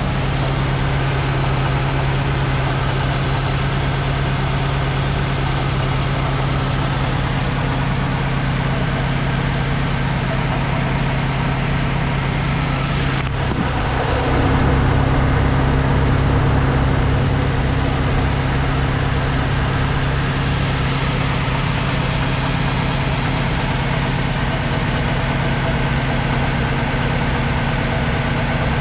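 2006 Subaru WRX's turbocharged flat-four engine running at a steady idle, a low even hum that gets slightly louder about fourteen seconds in. The engine is shaking hard at idle, which the owner guesses is caused by the worn original motor mounts at 155,000 miles.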